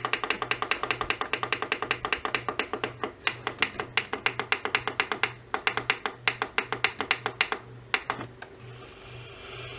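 Rapid, even run of clicks, about seven a second, as a digital radio's tuning is stepped quickly through the band, over a low hum that pulses about twice a second. The clicking stops about eight seconds in, and a steady hiss of radio static comes up near the end.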